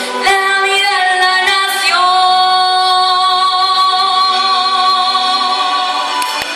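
A young girl singing the closing phrase of a song, ending on one long held note of about four seconds that stops near the end.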